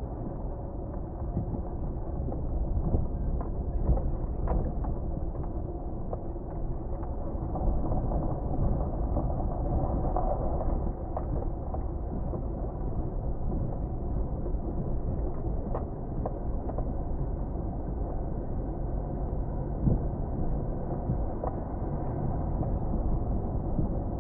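Steady low rumble of a car being driven, road and engine noise heard from inside, with a few small knocks and rattles.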